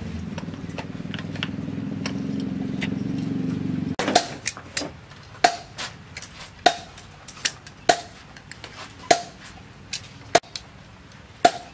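A steady low motor hum, which cuts off suddenly about four seconds in. Then a run of sharp metallic strikes, each with a short ring, about one every 1.2 seconds.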